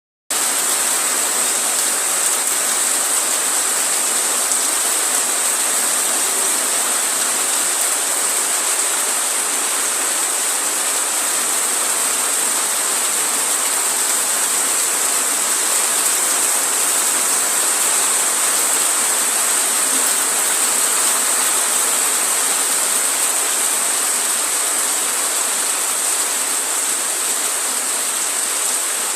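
Steady rain falling, an even hiss that holds unbroken throughout.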